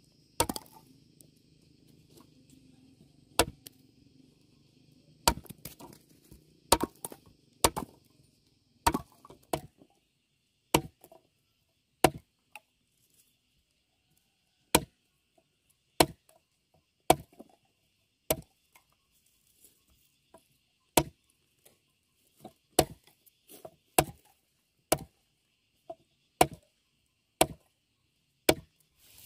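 Repeated chopping blows into wood: about twenty sharp strikes, roughly one a second, uneven in strength, with a couple of brief pauses.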